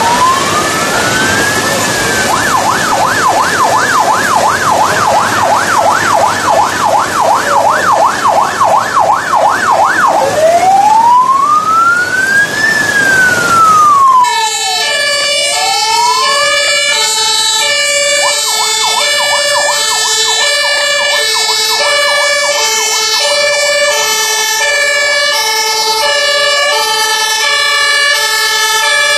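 Emergency-vehicle sirens from a passing convoy. First an electronic siren wails in slow up-and-down sweeps, switches to a fast yelp of about three sweeps a second, then returns to the wail, all under a steady hiss of heavy rain. About halfway through the hiss drops away abruptly, and several German two-tone horns (Martinshorn) sound at once, their alternating notes overlapping out of step, over a slow wailing siren.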